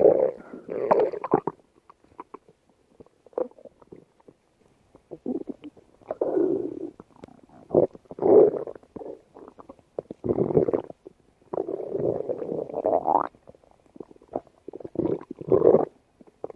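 Human stomach growling and gurgling in a string of irregular rumbles, some short and some drawn out over a second or two, with quiet gaps between them.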